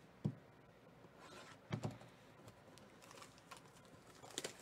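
Fingers handling a cardboard trading-card hobby box, making a few light knocks and taps: one near the start, a quick pair a little under two seconds in, and a short cluster near the end, with faint rustling between.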